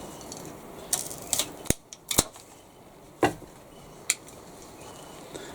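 Pruning secateurs clicking and cutting through woody stems: a quick run of about half a dozen sharp clicks between one and four seconds in.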